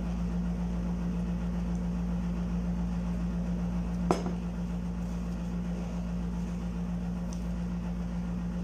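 A steady low mechanical hum, with a single sharp click about four seconds in.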